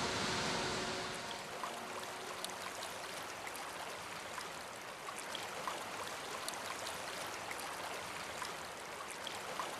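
A rushing waterfall that gives way about a second in to a shallow river flowing over stones: a steady hiss of moving water with small splashes and ticks.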